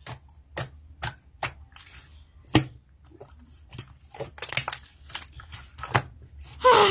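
Hands kneading and stretching a glossy blue slime, which gives off irregular sticky clicks and pops.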